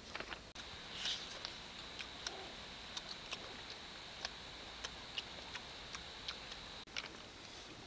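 Close-up chewing of cooked pig's head skin: sharp, irregular crunchy clicks, roughly two a second, over a faint steady high tone.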